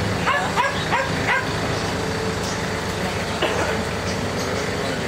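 An animal giving short, high yips: four in quick succession in the first second and a half, and one more about three and a half seconds in.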